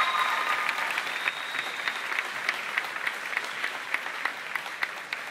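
Audience applauding, with a held high cheer near the start; the clapping then thins to a few evenly spaced claps that fade toward the end.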